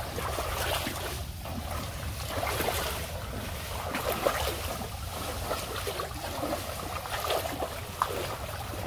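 Several people wading through knee-deep water, their legs sloshing and splashing in an irregular rhythm.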